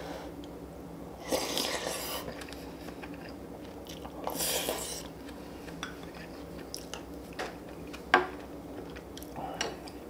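A person eating close to the microphone: biting and chewing, with two longer noisy bursts of mouth sound and small clicks. About eight seconds in there is one sharp clink of a utensil against a dish, the loudest sound.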